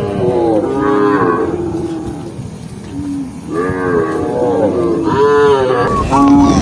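Cows mooing repeatedly, several calls overlapping, with a quieter lull midway before the mooing picks up again.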